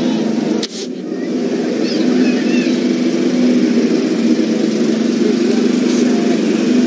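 Diesel engine of a Leyland DAF 45 lorry idling steadily, with a brief dip in level just under a second in.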